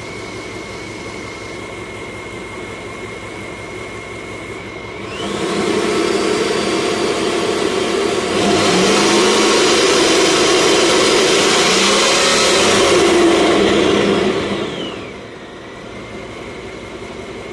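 1995 Camaro Z28's LT1 V8 with a freshly rebuilt Powerdyne BD-11A supercharger, idling with a thin steady whine, then revved up about five seconds in, higher again a few seconds later, and held before dropping back to idle near the end. The whine rises in pitch with the revs and falls back as the engine returns to idle.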